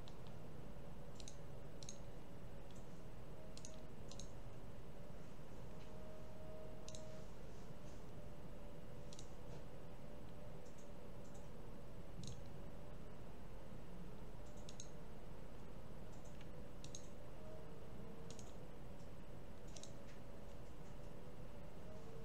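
Computer mouse clicking at an irregular pace, single and double clicks every second or two, over a steady low background hum.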